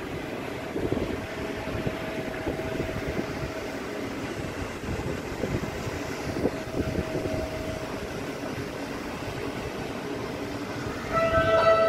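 Steady rumbling wind and running noise heard from the deck of a river cruise ship under way, with a faint steady hum through most of it. Music comes in near the end.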